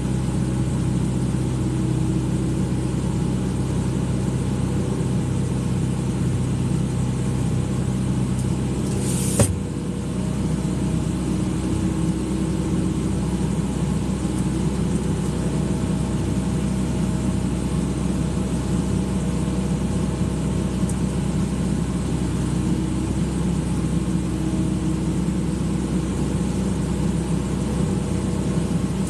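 Excavator's diesel engine running steadily. There is one sharp click about nine seconds in, after which the engine note shifts slightly.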